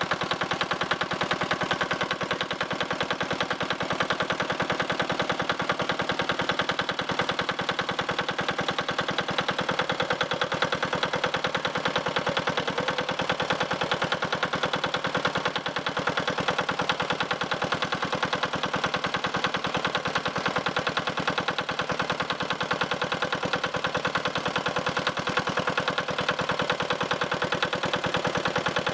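Small single-cylinder engine-driven water pump running steadily with a fast, even beat as it pumps water from the pond through its hoses. Its note rises slightly about ten seconds in.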